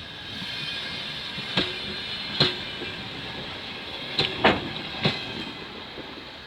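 Passenger train rolling slowly into a station. The wheels give about five sharp, irregular clacks over rail joints and points above a steady rolling noise.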